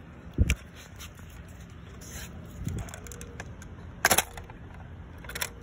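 Plastic Lego bricks and parts clicking and clacking as a built model is handled: a click with a soft knock about half a second in, a quick cluster of sharp clicks around four seconds in, and another near the end.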